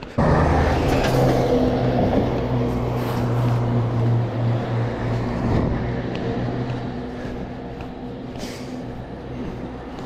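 A heavy truck's engine runs with a steady low hum and road noise. It is loudest in the first seconds and fades after about seven seconds as the truck moves off.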